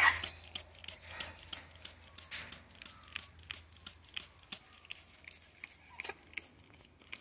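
A parrot gives one short, loud squawk at the start, then a run of irregular sharp clicks and crackles, several a second, runs on under a faint parrot call or two.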